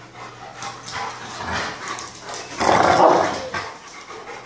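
Female boxer-mix dog giving a few short barks, the loudest about three seconds in, as she fends off a male dog trying to mount her.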